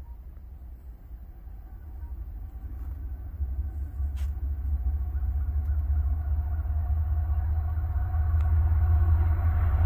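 Approaching Norfolk Southern freight train's diesel locomotives, a low rumble growing steadily louder, with a higher engine hum joining in over the last few seconds.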